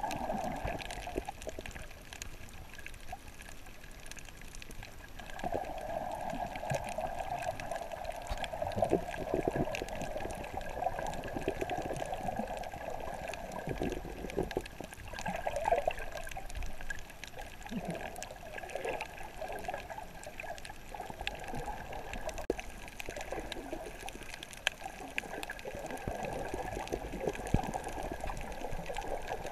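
Water sloshing and bubbling, picked up by a camera held underwater, with faint scattered ticks throughout.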